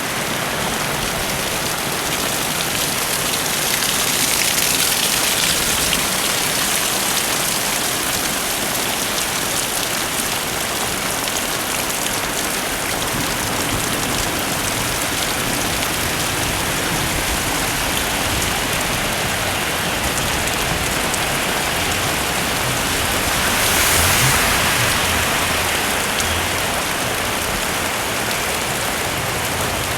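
Heavy rain falling steadily in a dense hiss, swelling louder twice, a few seconds in and again about two-thirds of the way through.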